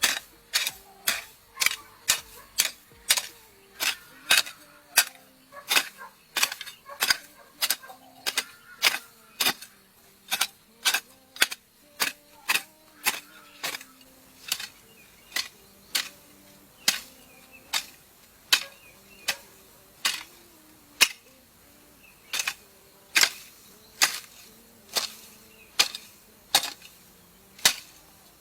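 Repeated sharp strikes of a hand tool, about two a second and evenly paced, as in chopping or hammering during building work.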